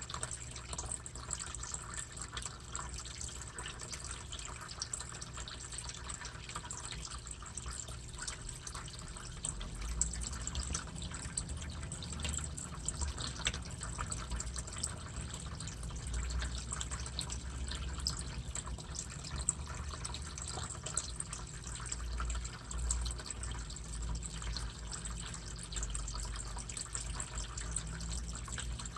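Water in a turtle tank trickling and dripping steadily, with small ticks and a low rumble throughout.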